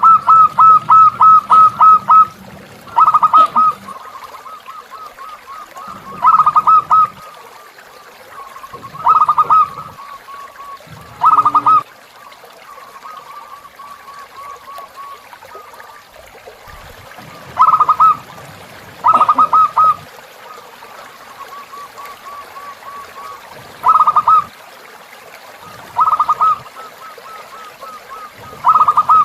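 Zebra dove (perkutut) song: loud bursts of rapid staccato coos recurring every two to three seconds, with fainter runs of notes between them. A river trickles steadily underneath.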